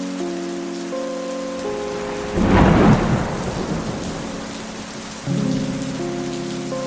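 Soft held synth chords over steady rain, with a loud clap and roll of thunder about two and a half seconds in. A new chord swells in about five seconds in.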